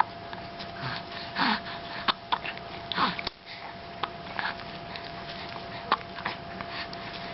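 Hiccups: several short, sharp hics spread out at irregular gaps, with breathy sniffing sounds between them.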